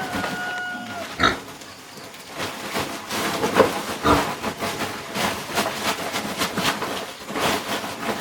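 Philippine native pigs grunting over and over in short, irregular calls.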